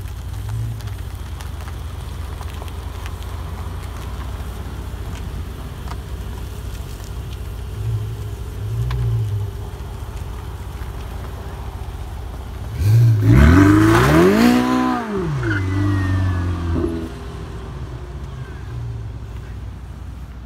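Ferrari 488's twin-turbo V8 idling, with a few light throttle blips. About two-thirds of the way in comes one hard rev, the loudest part, that climbs in pitch and falls back before it settles.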